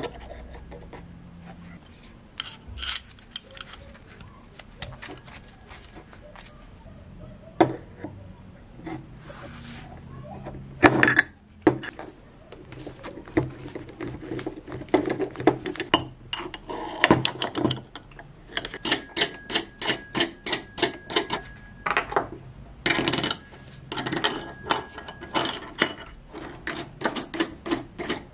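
Steel bearing-puller parts clinking and clicking against each other and the hub motor's metal side cover as a collet puller is fitted into the 6003 bearing and its sleeve, threaded rod and nut are assembled by hand, to pull out the bearing. The clicks come irregularly at first, with a few louder knocks, and in close quick runs in the second half.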